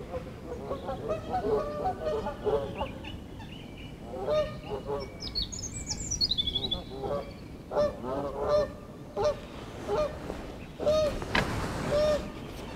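Geese honking repeatedly in short calls, with a small songbird's high, descending trill about five to seven seconds in.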